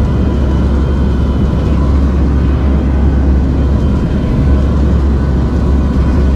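Steady drone of the Lockheed WP-3D Orion's four Allison T56 turboprop engines in flight, heard from inside the cabin: a loud deep hum with a faint steady whine above it.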